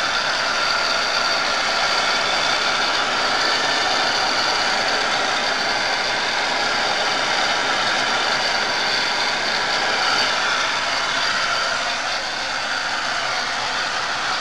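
Small electric blower running steadily: a loud, even whirring rush of air.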